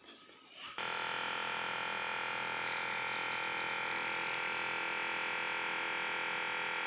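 Vitrectomy machine's vacuum pump starting about a second in and then running at an even level, a steady hum of several pitches, as the machine builds vacuum during its automatic vacuum check.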